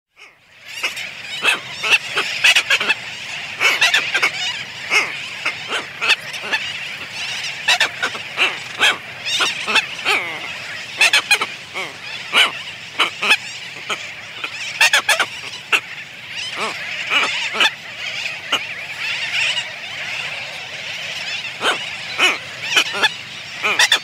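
A pair of red-tailed tropicbirds giving greeting calls at their nest, close up: many short, loud calls at irregular intervals. Behind them runs the steady, dense calling of a sooty tern colony.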